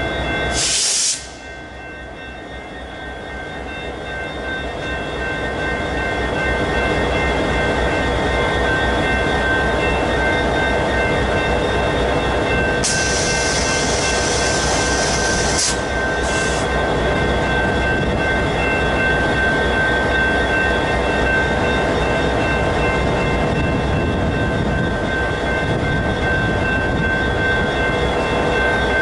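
Freight train rolling past, its rumble building over the first few seconds and then holding steady, with a steady high ringing tone over it. A brief high hiss comes in about 13 seconds in and lasts about three seconds.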